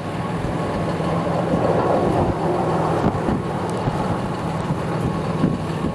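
Steady rushing wind noise over a steady low hum from an idling vehicle.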